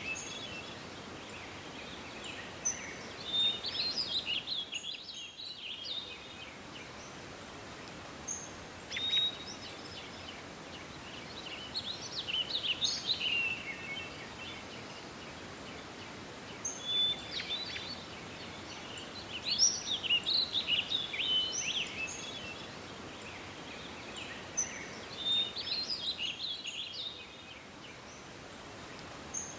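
Songbird singing short, quick chirping phrases that recur every few seconds over a steady outdoor background hiss.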